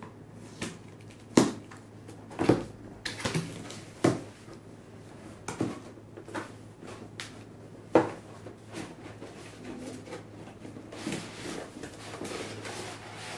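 A cardboard retail box being opened and handled: a series of separate knocks and scrapes as the flaps and lid are moved, the loudest about a second and a half in and again around eight seconds. Near the end comes a denser rustle as the paper manuals and plastic-bagged parts inside are handled.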